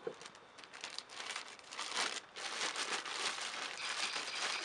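Plastic zip-top bag crinkling as it is handled and shaken, tossing cut potatoes, carrots and onions in olive oil inside. Faint at first, it grows louder and busier about a second in.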